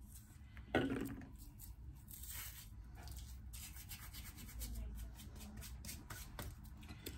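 Hands rubbing dried parsley between the palms, a soft dry rustle with faint ticks of falling flakes, louder briefly about a second in.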